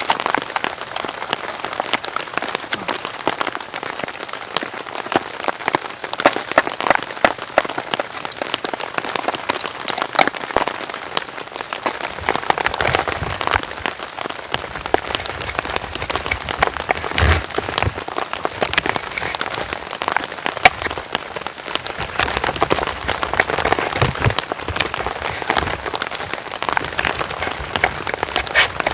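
Heavy rain falling, with many close, sharp drops striking a surface. A few low thumps come partway through and again later.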